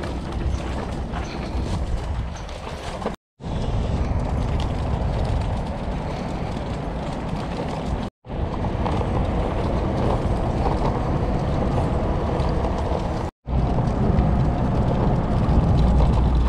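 Wheels of a loaded collapsible utility wagon rumbling and rattling as it is pulled over a rough dirt trail. The sound cuts out briefly three times.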